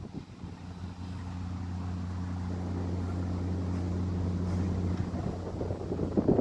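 A steady low engine hum growing louder over the first few seconds and easing off near the end, with wind buffeting the microphone.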